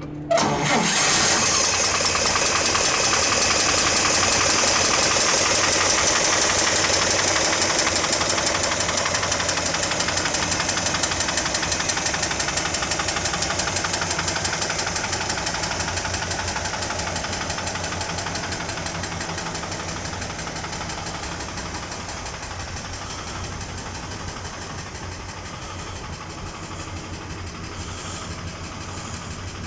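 1946 Chevrolet panel truck's inline six-cylinder engine idling steadily. It is loudest about half a second in and grows gradually quieter through the rest of the clip.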